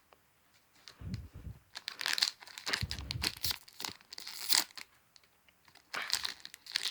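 Foil trading-card booster pack wrapper crinkling and being torn open by hand, in irregular rustling bursts with a pause about two-thirds of the way through.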